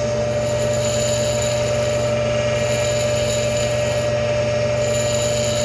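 Tool post grinder spinning its thin wheel at about 5,000 RPM with a steady whine, while a dressing stick is held against the wheel and adds a scraping hiss: the wheel is being dressed square.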